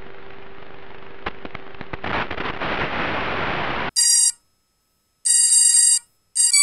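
Steady hiss from the FPV quadcopter's onboard camera audio, growing louder about two seconds in and cutting off abruptly near four seconds. It is followed by an electronic intro sound effect: three short bursts of bright, alarm-like beeping tones with silence between them.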